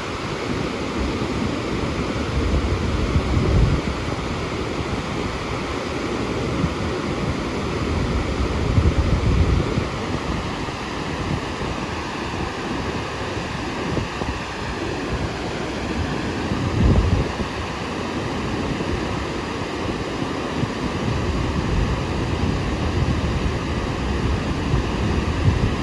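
Water pouring through a dam's open spillway floodgates, a steady rush, with wind buffeting the microphone in several low gusts.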